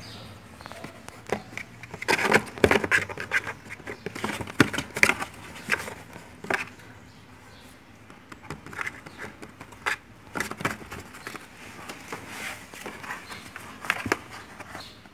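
Siamese cat scrabbling inside a cardboard shoebox, its claws scratching and knocking the cardboard in quick, irregular clicks and scrapes. The scratching is busiest in the first half and then comes in scattered bursts.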